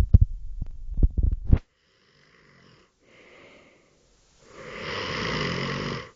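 A sleeping man snoring: a loud, low, rattling snore that stops about a second and a half in, then faint whistly breathing and a long airy breath near the end.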